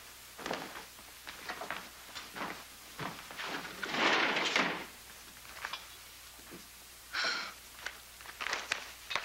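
Footsteps and a few knocks and thuds as a closet door and a cabinet are handled. About four seconds in, a longer rustle as a newspaper is handled.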